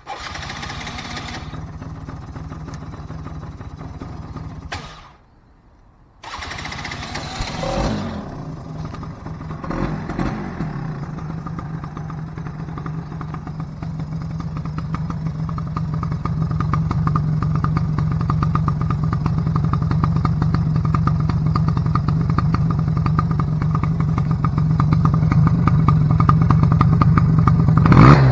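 Polaris Predator 90 ATV engine running. It cuts out about five seconds in and comes back a second later, gets two short blips of throttle, then idles steadily, growing louder toward the end.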